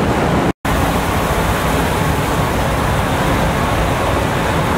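Steady, loud machinery noise on a ferry's enclosed vehicle deck, a continuous rushing hum with a low rumble, cut off for an instant about half a second in.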